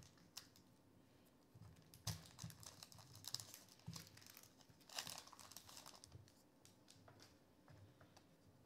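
A Topps Allen & Ginter baseball card pack being torn open. Its wrapper crinkles and tears faintly in a few short crackly bursts, and the cards rustle as they are handled.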